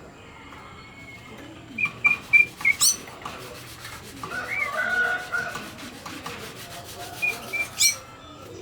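Cucak ijo (green leafbird) singing in clear whistled phrases: a quick run of short even notes ending in a sharp upward sweep, some wavering notes in the middle, and the same run-and-sweep phrase again near the end.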